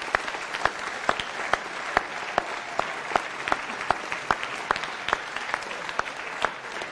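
Theatre audience applauding, a steady crowd of many hands clapping, with one person's claps close to the microphone standing out at about two and a half a second.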